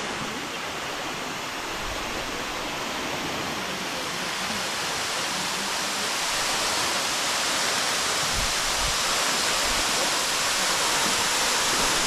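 Tall waterfall pouring down a rock face into a shallow pool: a steady rush of falling water that grows a little louder toward the end.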